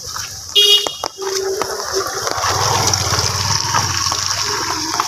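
Steady rush of rain and floodwater, with a motorbike engine passing close by through the water in the middle. About half a second in there is a brief shrill sound.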